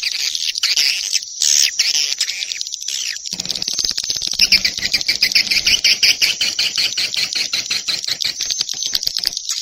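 Swiftlet calls from a swiftlet-house lure recording: shrill twittering chirps, then, about a third of the way in, a fast, even run of clicking chirps.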